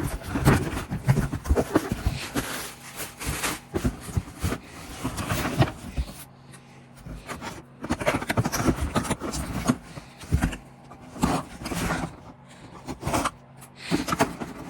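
Irregular scraping, rustling and knocking as a cardboard box and its packaging are handled and opened.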